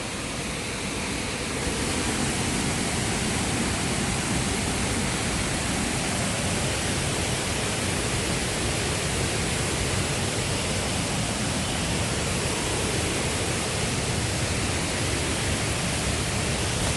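Waterfall rushing steadily: an even wash of falling water with no break, growing a little louder about a second and a half in.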